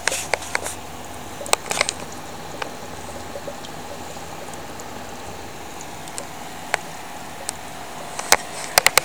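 Aquarium air pump running with a steady hum and a faint whine, air bubbling through the goldfish tank's water. Scattered sharp clicks break in, several close together near the end.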